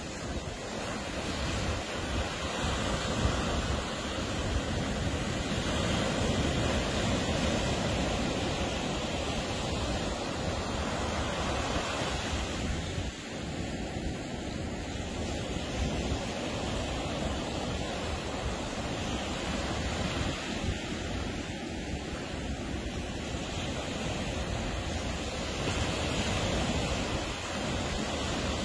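Ocean surf breaking and washing onto the beach in a continuous rush that swells and eases over several seconds, with some wind noise on the microphone.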